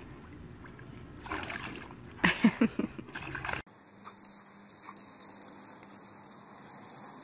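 Water splashing and sloshing in a plastic paddling pool, with a few short pitched sounds about two seconds in. After a sudden cut, a faint steady hiss of a garden hose spraying water.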